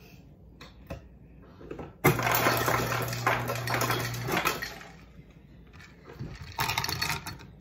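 Refrigerator door ice dispenser running for about two seconds: a steady motor hum with ice clattering into a cup. A shorter rattle of ice follows near the end.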